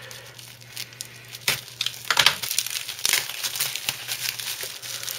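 Bubble wrap crinkling and crackling as it is cut with a box cutter and pulled at by hand. The crackles come irregularly and grow louder about a second and a half in.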